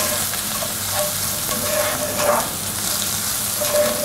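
Onion and sauerkraut sizzling as they fry in a pan, stirred with a few short scrapes against the pan.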